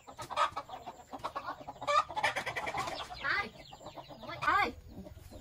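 Chickens clucking in a string of short calls, the loudest near the end.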